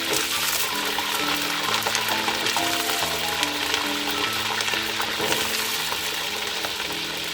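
Food frying in hot oil in a pan: a steady sizzle full of fine crackles that cuts off suddenly at the end, with background music throughout.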